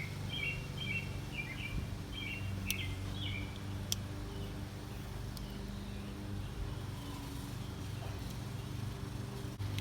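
Small birds chirping for the first few seconds over a steady low background hum, with a couple of sharp clicks a few seconds in.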